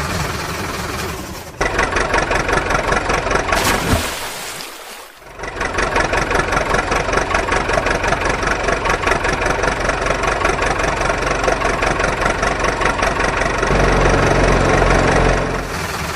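Engine idling with a steady, evenly pulsing chug. It breaks off briefly about four seconds in, then runs on and turns deeper near the end.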